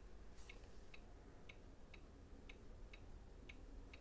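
Clock ticking faintly and evenly, two ticks a second.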